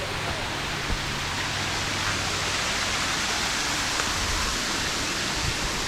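A waterfall rushing steadily close by, with a few faint knocks.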